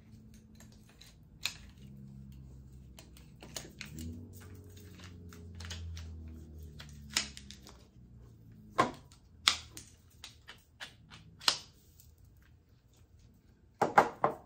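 Clicks and clacks of a folding camping cot's tubular frame legs and plastic joints being handled and snapped into place, coming irregularly, with the sharpest clacks in the second half.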